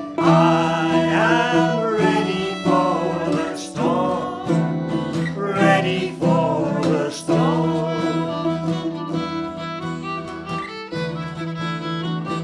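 Instrumental music: a fiddle playing a wavering melody over strummed and plucked guitar.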